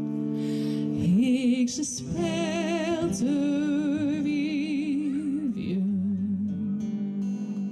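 A woman singing long drawn-out notes with a wide vibrato over steady acoustic guitar chords, in a Cajun song.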